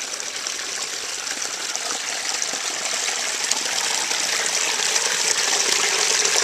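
Little waterfall on a woodland creek splashing into a pool: a steady rush of falling water that grows louder as it gets closer.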